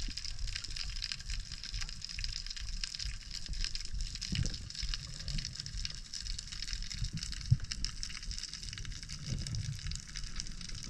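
Underwater ambience recorded with the camera submerged: a steady fine crackling over a low rumble, with a few soft thumps and one sharp click about seven and a half seconds in.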